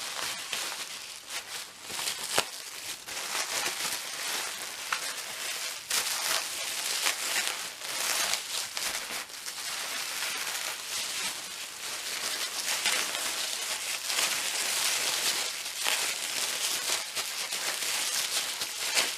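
Packing material being handled and pulled off a parcel by hand: continuous crinkling and rustling with many sharp crackles.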